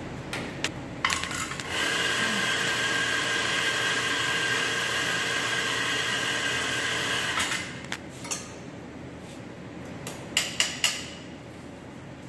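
Espresso grinder running steadily for about six seconds, grinding coffee into the portafilter, with metal clicks from the portafilter being handled before it. Near the end, three sharp knocks in quick succession as the portafilter is handled at the tamping station.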